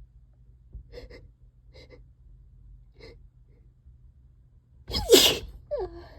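A single loud allergy sneeze about five seconds in, followed by a brief falling vocal sound as the breath goes out.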